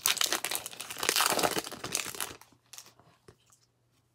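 Foil wrapper of a 2019 Topps Big League baseball card pack being torn open and crinkled for about two and a half seconds, then a few faint ticks as the cards are slid out.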